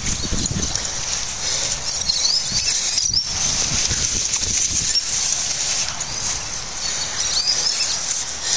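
Outdoor ambience: a steady high hiss with a few faint short chirps, over irregular low rumbling on the microphone.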